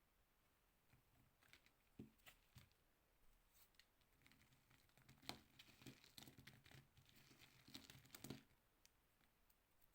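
Knife cutting through a bar of soap: faint crackling and crunching with small clicks and scrapes. It starts about a second in and stops a little past eight seconds.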